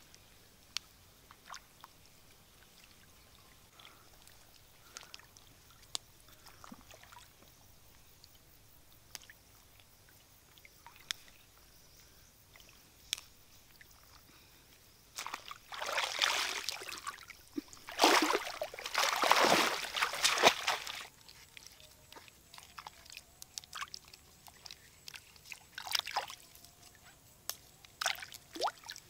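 Shallow muddy water sloshing and splashing as water mimosa is pulled up and swished through it, with scattered small drips and trickles. About halfway through come several seconds of louder sloshing, then smaller splashes again.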